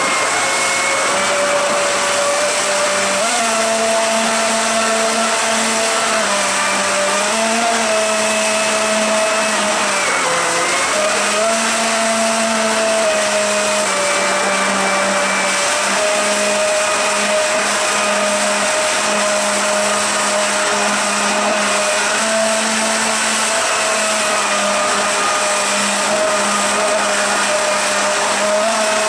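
Electric surfboard jet drive, its electric motor spinning the jet pump impeller at high rpm under a load of about 50 amps in a test tub: a steady motor whine over churning, frothing water. The pitch wavers slightly and dips briefly about ten seconds in.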